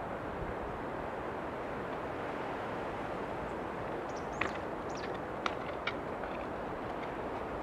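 Steady wind noise, with a few short, high, falling bird chirps about halfway through.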